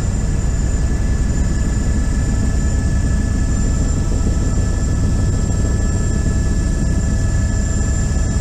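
Helicopter turbine and rotor noise heard from inside the cabin in flight: a loud, steady low rumble with a constant high-pitched whine over it.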